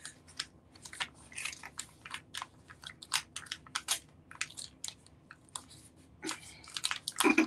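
A plastic sheet-mask packet crinkling as it is pressed and rubbed hard against a counter to burst its sealed inner pouch of essence. It makes irregular sharp crackles, several a second.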